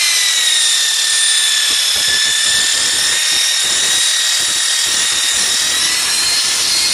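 Handheld electric polisher running steadily, its pad working across a car windscreen to polish out scratches. A steady high motor whine over the rubbing of the pad on the glass, the pitch dipping slightly a second or two in and picking up again near the end.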